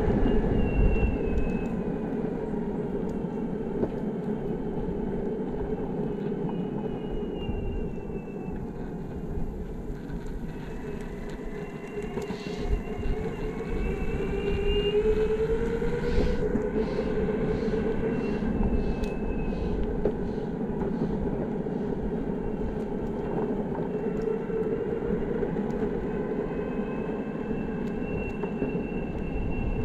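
Belt-drive electric skateboard's motors whining, the pitch rising and falling with speed, over the rumble of the wheels on pavement and wind on the helmet microphone. The whine climbs about halfway through, and a row of light ticks passes under the wheels.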